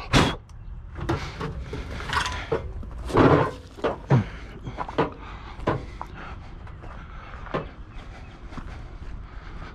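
Scattered knocks and clunks of junk items being handled and set down, the loudest about three and four seconds in.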